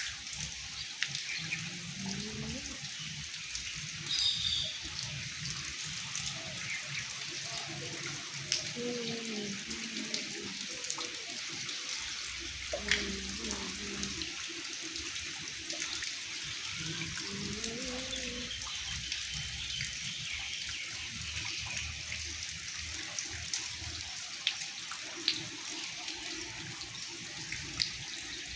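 Monsoon rain falling steadily, an even hiss of water with scattered drip and splash ticks. A faint voice-like call rises and falls a few times in the background.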